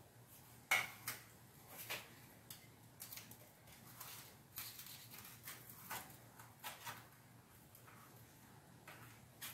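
Metal kitchen tongs clicking and knocking against a metal tray while roast chicken pieces are picked up, a string of scattered short clicks with a sharper knock just under a second in.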